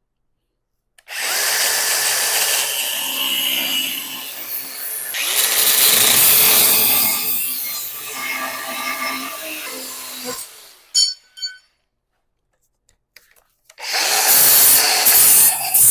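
Handheld power tool cutting into a steel engine mount to trim it for clearance. It runs for about nine seconds, stops, and starts again near the end.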